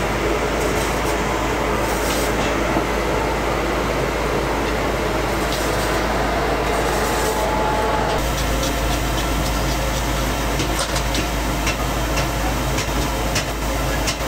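Steady loud machinery noise with a strong low hum, the constant din of foundry equipment. Faint light clicks and clinks come through in the second half.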